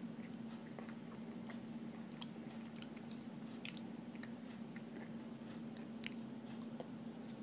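A person chewing a mouthful of raw cornstarch: irregular small crunching clicks, with one sharper click about six seconds in, over a steady low hum.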